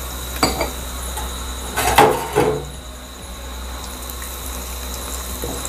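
Raw peanuts sizzling in hot oil in a nonstick pan, with a spatula knocking and scraping against the pan, loudest about two seconds in.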